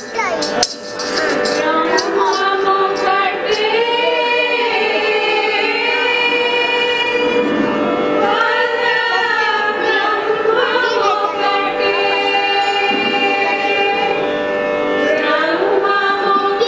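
A group of women singing a Carnatic devotional song together, their voices gliding through ornamented phrases over a steady drone. A few sharp clicks sound right at the start.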